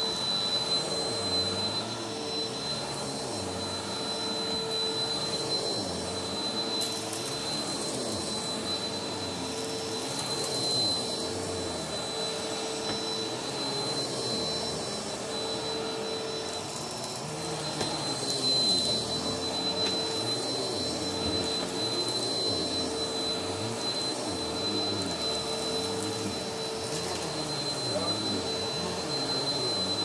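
Upright bagless vacuum cleaner running while pushed across carpet: a steady motor whine with a constant high tone over a lower hum.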